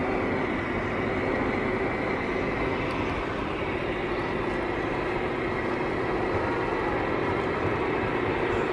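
Steady road and engine noise inside a moving car's cabin, an even rushing sound with a low steady hum and no change in level.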